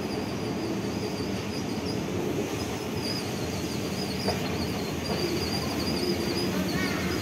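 Escalator running: a steady mechanical hum and rumble with a thin, wavering high whine. A single sharp click a little over four seconds in.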